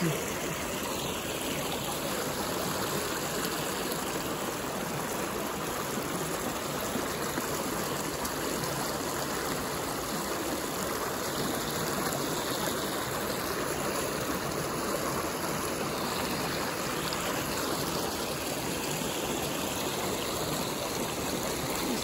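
Shallow creek water running over rocks in riffles: a steady, even rushing.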